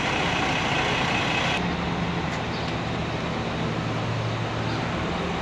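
Heavy diesel bus engine running amid street traffic noise; about a second and a half in the sound changes abruptly to a steadier low engine hum.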